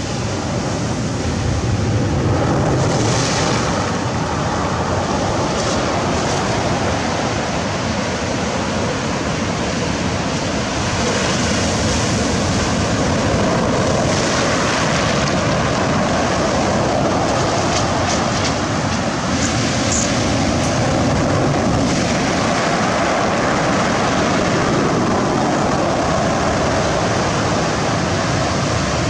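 Sea surf washing in and breaking, swelling and easing every few seconds, with wind on the microphone.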